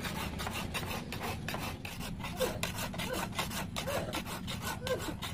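Flat hand file rasping back and forth along a forged steel blade, in quick, even, repeated scraping strokes.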